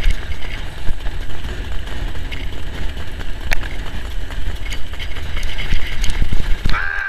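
Wind buffeting the microphone of a camera on a harness-racing sulky at speed, over the steady low rumble of the sulky and trotting horse on the dirt track.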